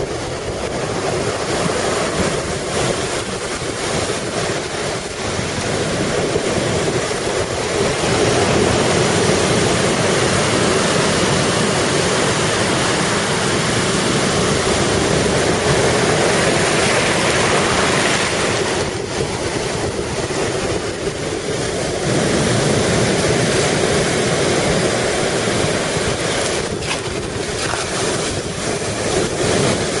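Large storm waves on Lake Superior breaking and surging onto the shore in a continuous wash of surf, with gale-force wind buffeting the microphone. The sound holds steady with no pause, a little louder through the middle.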